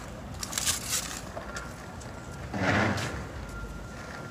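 Outdoor city-street sound while walking on a sidewalk: footsteps and scuffs, a short louder noise just past the middle, and a faint steady high tone behind.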